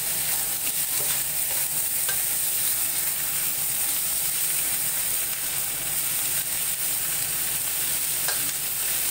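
Beef brisket sizzling in a little oil in a metal wok while a spatula stirs and scrapes it, with a few light clinks against the pan; the meat is being browned. The sizzle is a steady hiss.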